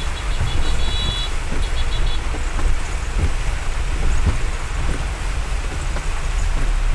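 Heavy rain pouring down in a steady hiss over a strong low rumble. A run of short high-pitched electronic beeps sounds through the first two seconds, then stops.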